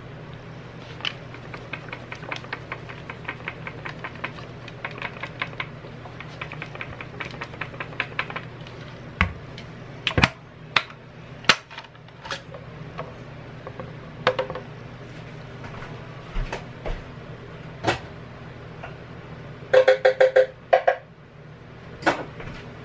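Light clicking and tapping of a plastic blender jar tipped over a plastic bowl as thick chipotle sauce is coaxed out, with a few sharper knocks and a short clatter near the end. A low steady hum runs underneath.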